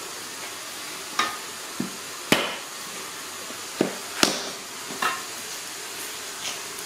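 A series of sharp knocks and taps, about seven at irregular intervals, some with a short ring, over a steady background hiss.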